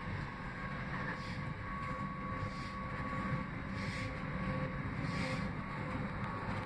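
Manchester Metrolink tram running along the track, heard from inside: a steady rumble of wheels on rail with a faint, steady electric whine. A soft hiss swells about every second and a half.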